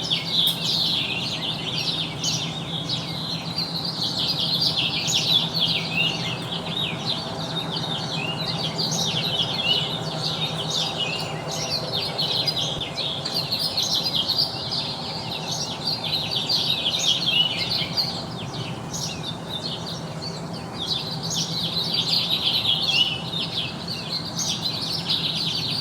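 A dense chorus of many small birds chirping and trilling at once, unbroken. A steady low hum runs underneath.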